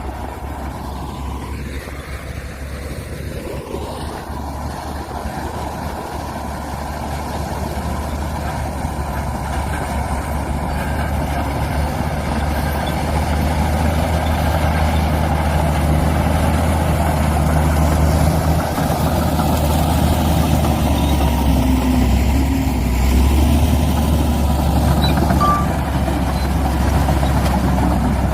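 Heavy earthmoving machinery's diesel engines running steadily, growing louder over the first dozen seconds and then holding level.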